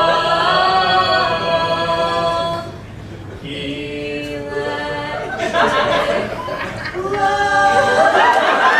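Two people singing a duet live, holding long sustained notes. The singing drops quieter for a moment about three seconds in, then picks up again.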